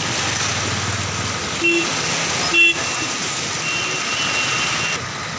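Steady rush of a river in flood, with two short vehicle horn toots a little under a second apart midway through.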